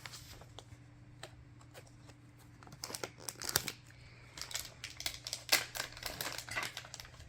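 Plastic candy wrapper crinkling and being torn open by hand: a quiet start, then a run of irregular crackles from about three seconds in.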